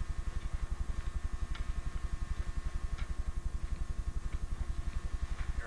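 Steady low pulsing hum, about a dozen pulses a second, with a faint steady whine and a few faint clicks: the running noise of an old VHS camcorder recording.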